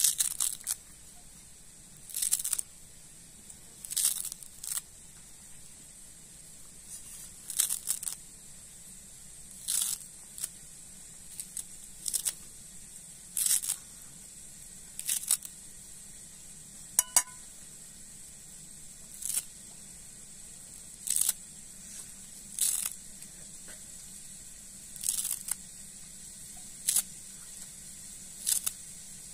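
A small knife slicing through bunches of fresh coriander stems held in the hand, crisp cutting crunches coming in short bursts every second or two. One sharp ringing click sounds about halfway through.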